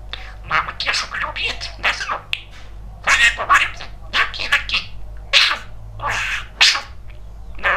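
Pet budgerigar chattering and warbling in a rapid stream of short, high, scratchy bursts.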